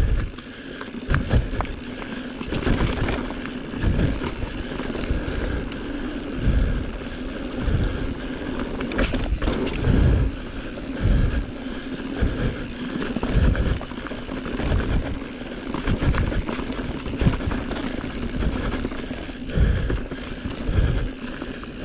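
Giant Trance mountain bike ridden along a dirt trail: knobby tyres rolling, chain and frame rattling, with irregular low thumps every second or two as it goes over bumps and roots.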